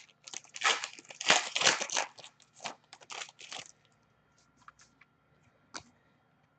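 Trading cards being handled: a few seconds of rustling and sliding card stock and packaging, then a few faint taps and clicks.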